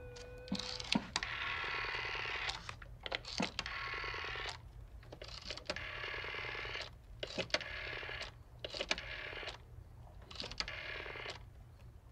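Black rotary-dial desk telephone being dialed: a steady dial tone cuts off about half a second in, then six digits are dialed, each a click as the finger lets go and a whirring run of the dial spinning back, the runs lasting one to two seconds depending on the digit.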